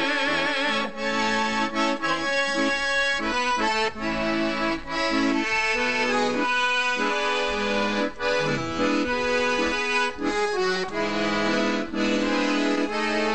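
Instrumental background music, a tune played on accordion.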